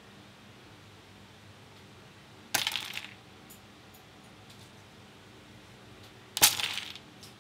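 Small plastic model-kit parts dropped onto a hard surface, clattering twice about four seconds apart, with a few faint ticks in between.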